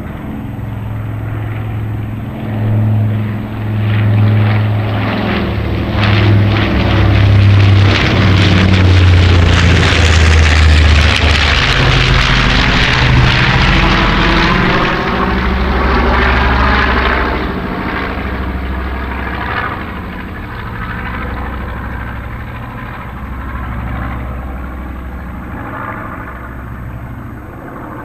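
A WWII twin-engine bomber's piston engines and propellers passing low overhead: the drone builds to a loud peak near the middle, drops in pitch as the plane goes by, then fades away.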